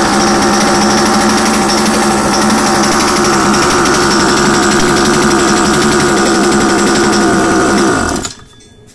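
Small two-stroke outboard motor running loudly and steadily, then shut off about eight seconds in, its speed falling away as it dies.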